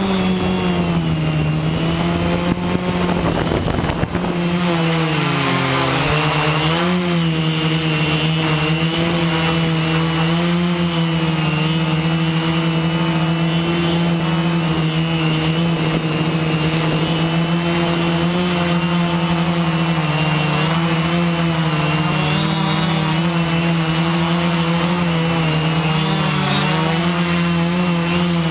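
FPV quadcopter's electric motors and propellers buzzing steadily as heard from its onboard camera, the pitch wavering with throttle changes. Wind buffets the microphone for the first few seconds.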